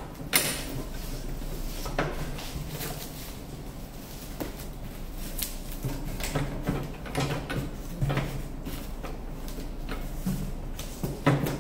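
Bubble-wrap packaging and a cardboard box being handled: irregular crinkling and rustling with scattered clicks and knocks. The sharpest knocks come about half a second in and again near the end.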